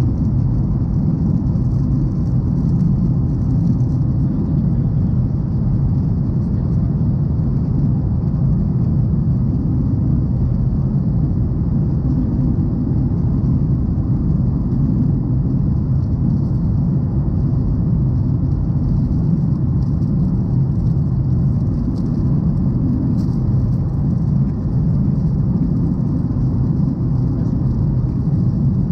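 Cabin noise of a Boeing 737 in flight: the steady low drone of the engines and airflow, with a fainter hiss above it.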